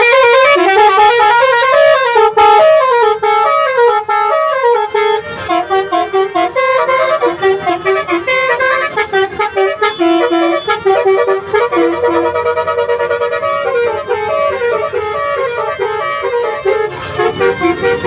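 Telolet horn on a taxi, a multi-tone musical horn, playing a loud, fast tune of short notes that step up and down in runs.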